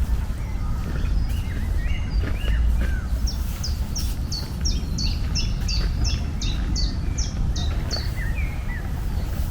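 Small birds chirping outdoors over a steady low rumble. In the middle, one bird repeats a high, quick falling note about a dozen times, roughly two and a half notes a second, while other, lower chirps come and go.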